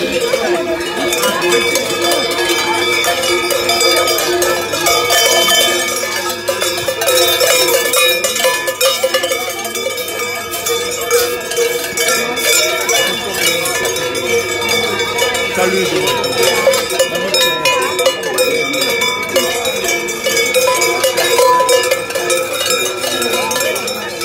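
Many cowbells clanging together without a break, a dense, steady jangle of overlapping metallic rings.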